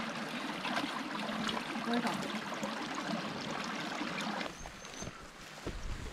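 Shallow rocky stream trickling, with hands scooping and splashing water. About four and a half seconds in it cuts to a quieter stretch of faint steps through long grass.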